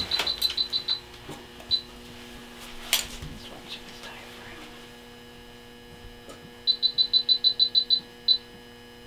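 Operating-room electronic equipment beeping: a run of short, high beeps at about eight a second for roughly a second, then a single beep. The pattern comes once near the start and again near the end. Under it runs a steady electrical hum.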